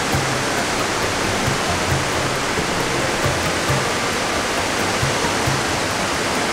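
Steady rushing of a mountain valley stream, an even hiss of running water that doesn't let up.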